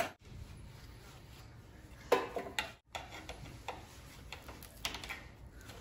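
Scattered small clicks and taps of a screwdriver and plastic parts being worked at an electric scooter's handlebar housing, with a short cluster of clicks about two seconds in.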